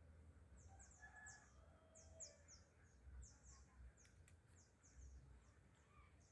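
Faint bird calls: a string of quick, high, falling chirps, with a rooster crowing faintly about a second in.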